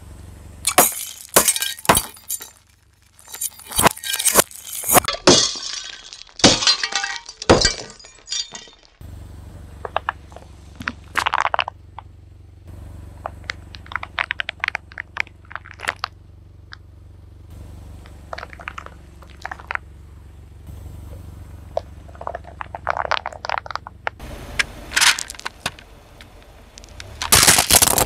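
Glass fluorescent tubes shattering under a car tyre, a rapid string of loud cracks with tinkling glass over the first nine seconds. After that, a car engine runs steadily under scattered small pops and crackles as a silicone pop-it toy is pressed flat, and another burst of crunching cracks comes near the end.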